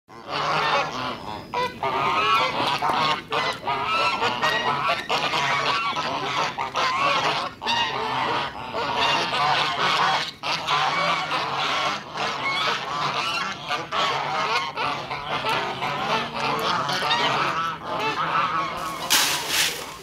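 A flock of domestic geese honking and cackling continuously, many birds calling over one another.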